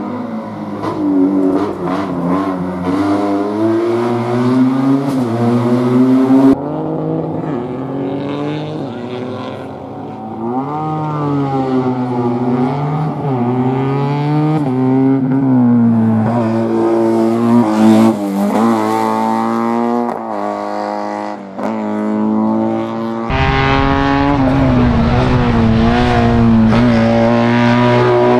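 Race-prepared classic Fiat 500 slalom car's engine revving hard, its pitch climbing and dropping again and again as the car accelerates and lifts off through gear changes and bends. The sound jumps abruptly a couple of times where shots from different spots are joined.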